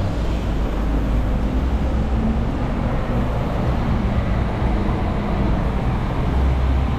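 Steady road traffic: vehicle engines running with a low rumble under an even haze of road noise.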